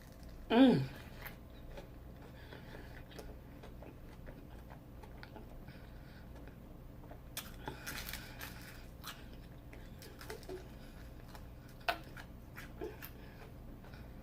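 Close-up eating sounds: a person chewing and crunching Flamin' Hot Cheeto-breaded fried food, with soft, scattered crunches and mouth clicks. A short vocal sound falling in pitch comes about half a second in.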